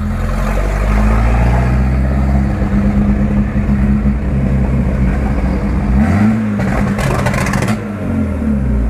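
Chevrolet Opala engine running loud through an opened exhaust cutout. About six seconds in it is blipped, a rapid string of exhaust pops follows, and the revs fall away near the end.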